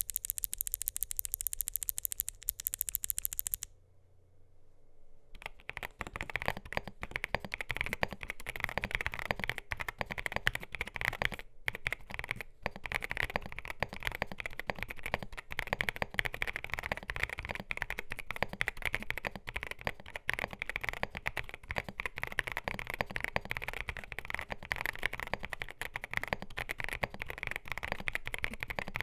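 Typing on a CIDOO ABM081 mechanical keyboard with CIDOO Carda switches, a polycarbonate plate, MDA PBT keycaps and a gasket mount: steady, fast key clacks. A short burst of sharper, brighter rapid clicking comes first, then a brief pause before the typing starts about five seconds in.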